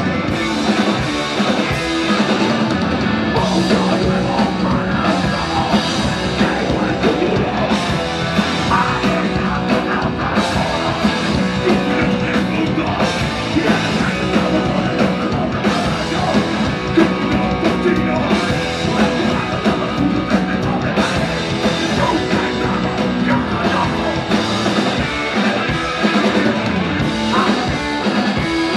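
A rock band playing loud, hard punk-metal, with electric guitar and bass guitar.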